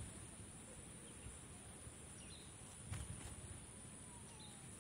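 Faint outdoor ambience: low wind rumble on the microphone, a steady high-pitched drone, and a few brief bird chirps, with a soft knock about three seconds in.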